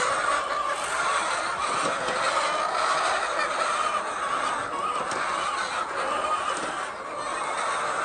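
A large flock of laying hens clucking and calling all at once, a steady chorus of many overlapping voices.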